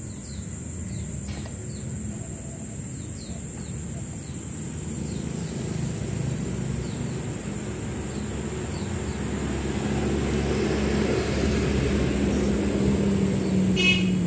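A motor vehicle's engine running somewhere near, its rumble growing louder over the last few seconds, with small bird chirps in the first half and one light click about a second and a half in.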